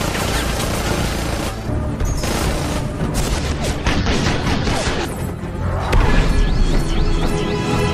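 Action-film soundtrack: dramatic orchestral score layered with heavy booms and crashing impacts, a deep rumble swelling about six seconds in.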